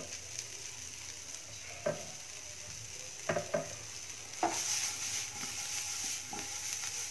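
Spiced potato cubes frying in a nonstick pan, a steady sizzle with a few light knocks. From about four and a half seconds in, the sizzle grows louder and brighter as the pan is tossed.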